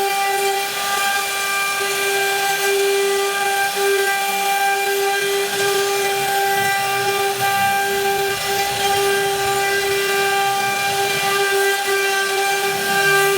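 CNC router spindle running steadily while cutting wood: a high, unchanging whine over a hiss of cutting noise, with a few brief dips in the whine.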